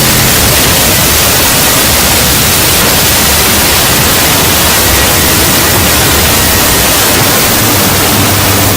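Loud, steady hiss of static noise, like white noise, unchanging throughout, with a faint thin whistle-like tone running under it.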